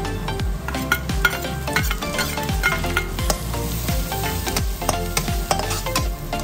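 Metal spatula scraping and clinking against a steel wok while chopped garlic, shallots, dried shrimp and chilli padi sizzle in hot oil, stir-fried until fragrant.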